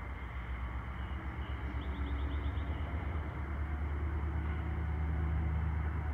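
Diesel freight locomotive approaching, its engine running with a low steady sound that grows gradually louder as it nears.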